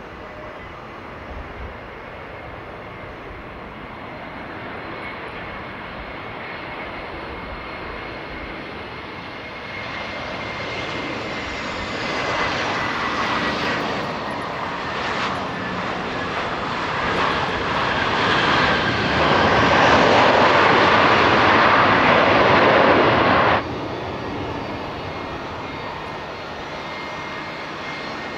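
Jet aircraft engines growing louder as a plane passes close, with a high whine that slides slowly down in pitch. The noise is loudest near the end and cuts off suddenly about 23 seconds in, leaving a quieter, steady engine sound.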